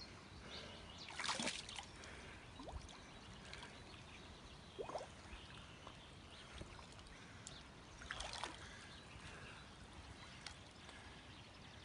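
Shallow river water sloshing and splashing softly around a wading man releasing a large wels catfish, with two louder splashes, one about a second in and one later on.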